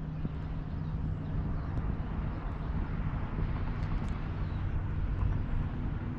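A steady low hum under an even rushing noise, with a few faint clicks about four seconds in.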